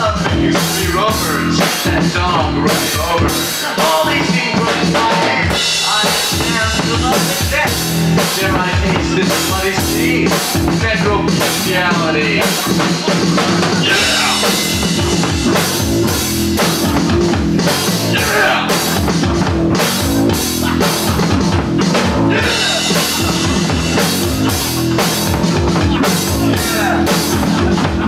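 Live band playing loud, rock-style music: a Tama drum kit beating out a steady rhythm with bass drum and snare hits, over a low bass line.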